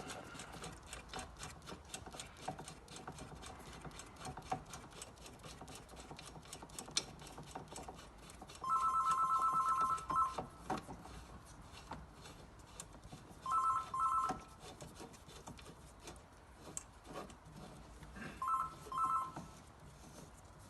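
Telephone ringing with an electronic trilling ring: one ring of about a second and a half, then two shorter double rings. Faint small clicks run underneath.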